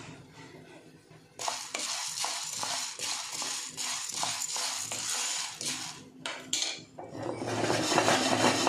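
Whole black peppercorns rattling and scraping against a metal pan as they are stirred with a wooden spatula while dry-roasting, a dense patter of small hard ticks that starts about a second and a half in. Near the end the rattling grows louder and fuller.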